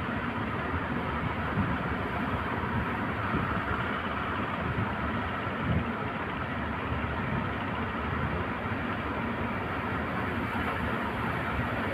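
Steady roar of heavy ocean surf breaking, with no single waves standing out.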